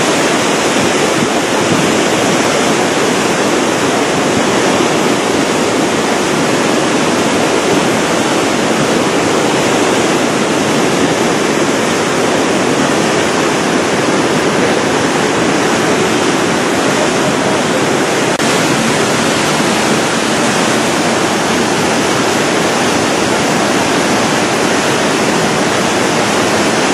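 Mud-laden flood torrent (a huaico debris flow) rushing loud and steady, a continuous roar of churning water.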